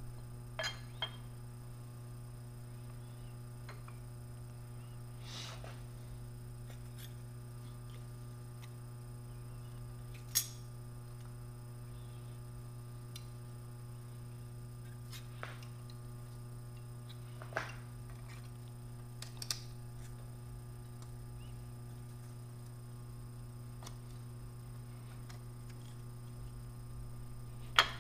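Steady low electrical hum with a few scattered light clicks and knocks, the loudest about ten seconds in, as a cast iron straight edge is handled and seated on parallels in a milling vise.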